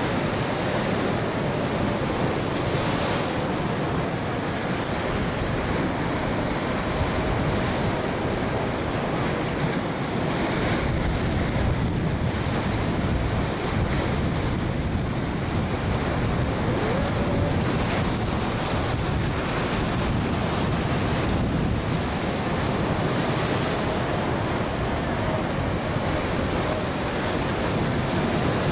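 Surf on a beach: a steady wash of breaking waves.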